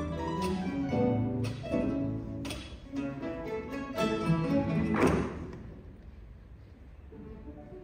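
A guitar ensemble of classical guitars plays strummed chords about once a second. About five seconds in comes a loud accented chord, and the music then drops to a soft, sparse passage.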